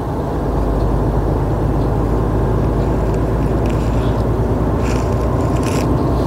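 Truck engine and road noise inside the cab while driving on the highway: a steady low rumble.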